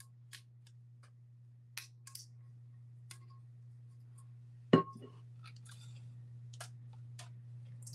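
Scattered light clicks and taps of small objects being handled, with one sharp knock a little past halfway, over a steady low hum.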